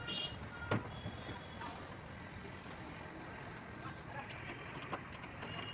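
A few sharp metallic clicks and knocks from a wrench working on an air conditioner outdoor unit's pipe fittings, the loudest about a second in, over steady street traffic noise.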